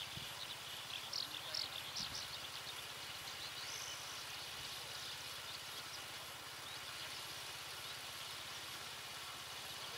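Open farm-field ambience: a steady low hiss with faint, quick high-pitched chirping calls in the first two seconds and a short high whistled note about four seconds in.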